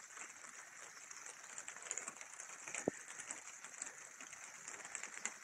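Faint outdoor garden ambience with distant birds chirping now and then over a steady high hiss, and a single sharp click about three seconds in.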